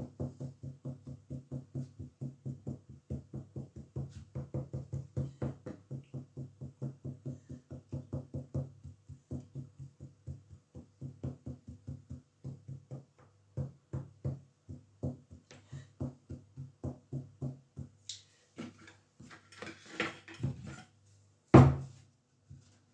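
Fork pricking rolled pastry dough on a wooden pastry board: quick, even taps, several a second, thinning out about halfway through. Near the end comes a single loud knock of the wooden rolling pin on the board.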